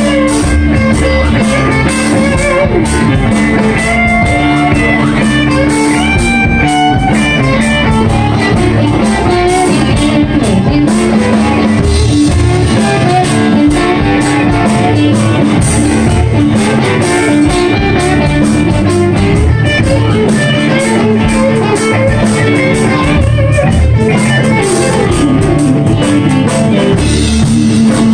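Live blues-rock band playing an instrumental passage: electric guitar and bass guitar over a drum kit, with long held notes above a steady beat.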